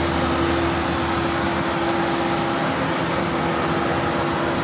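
Air pump running steadily with a constant hum, inflating a rubber ship-launching airbag through a hose.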